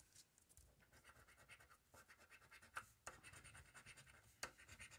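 A coin scraping the scratch-off coating from a paper lottery ticket: faint, quick, repeated scraping strokes, with a few sharper ticks among them.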